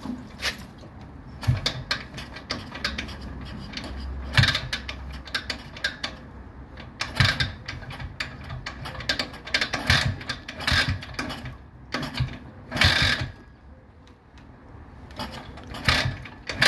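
Pannonia 250 single-cylinder two-stroke motorcycle being kick-started with the choke on: the kickstarter mechanism clatters and clunks in repeated strokes about every two to three seconds, and the engine does not yet catch.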